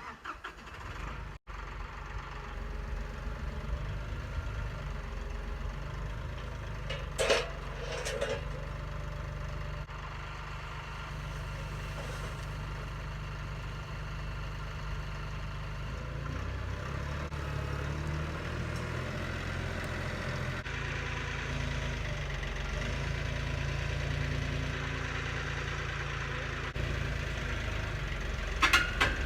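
Tractor engine running steadily, with a few sharp knocks: two about seven and eight seconds in and a pair near the end.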